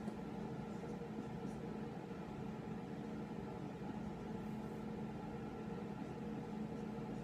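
Steady machine hum of a small room, like a fan or air-handling unit, with a few faint squeaks of a dry-erase marker writing on a whiteboard.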